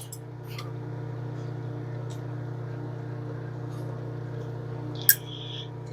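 Steady hum of a small motor, like a kitchen appliance running, with a few light clicks and one sharp clink about five seconds in.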